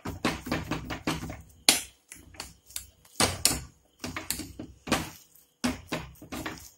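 Spatula knocking and scraping against the inside of an aluminium pressure cooker as cooked tapioca and sardines are mashed. The knocks come irregularly, the sharpest one just under two seconds in.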